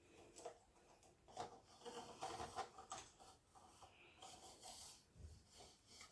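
Faint rubbing, scraping and small clicks of a ring light's telescopic stand being extended, its tube sections sliding out one after another.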